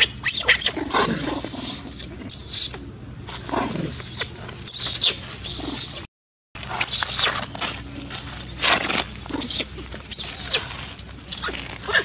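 Baby long-tailed macaque screaming in distress: repeated shrill, high-pitched screeches and squeals, some falling in pitch. The sound cuts out briefly about six seconds in, then the screaming goes on.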